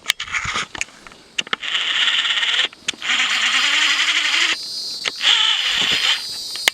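Cicada buzzing loudly in three long rasping stretches, each a second or so, with short breaks between them, over a few footsteps.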